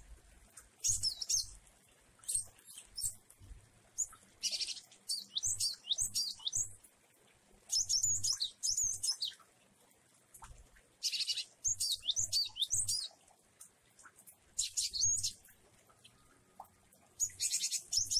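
Caged cinereous tit (glatik wingko) singing varied phrases. Short bursts of rapid, high chirps and sweeping notes come every second or two, with brief pauses between.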